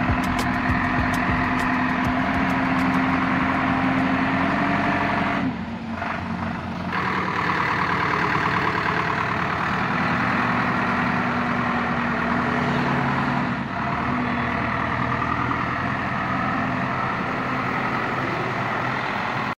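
JCB backhoe loader's diesel engine running steadily, with a brief drop in level about five and a half seconds in.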